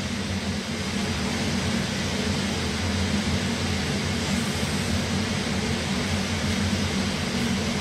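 Kitchen range hood exhaust fan running steadily over the stove: a constant low hum under an even rushing hiss.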